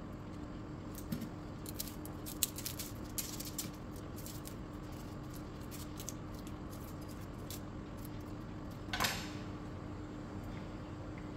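Knife peeling shallots by hand: small scattered clicks and scrapes of the blade against the papery skins, over a steady low hum. About nine seconds in there is one louder, longer scrape.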